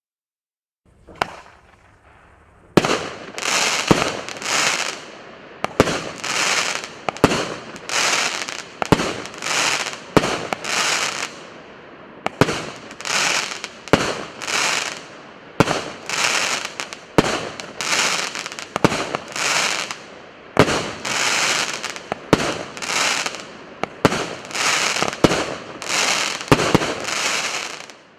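Fireworks battery (PC707 cake) firing shot after shot: a sharp bang about once a second, each followed by a long dense crackling hiss from crackling stars. It starts about a second in and stops near the end.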